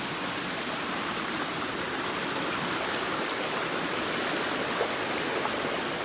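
Small spring-fed creek rushing and splashing over rocks at its mouth, a steady rush of water.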